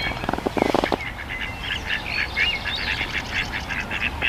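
Birds calling by the water: a short buzzy, pulsing call in the first second, then a quick run of high chirping notes.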